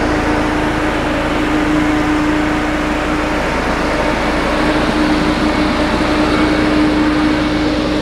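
Sakai padfoot (sheep's foot) soil compactor's diesel engine running steadily close by as the roller drives over the dirt pad, with a steady hum over a low rumble.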